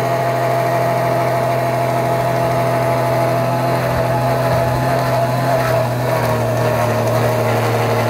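Small three-cylinder engine of a Mitsubishi Mighty Mits kei truck idling steadily, its note settling slightly lower about six seconds in.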